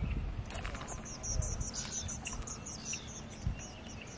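Birds chirping outdoors, a quick series of short, high notes repeated several times a second, over a low rumble of wind on the microphone.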